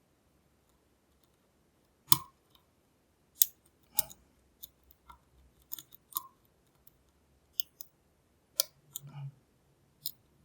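Lock pick tapping at the pins inside a Lockwood V7 padlock: sharp, irregular metal clicks, about nine of them, starting about two seconds in. The picker is trying to set pins one by one.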